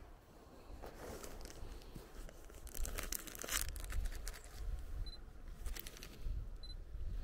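Plastic bag with cat food inside being crinkled in irregular bursts, with sharp clicks, rustled to make a noise that draws a cat's attention. Two short high beeps come in the second half.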